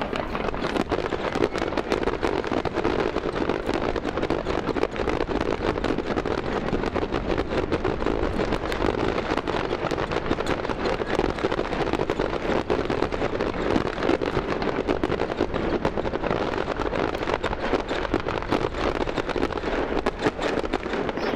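Fireworks going off in a dense, continuous crackle of many small bursts that fades out near the end.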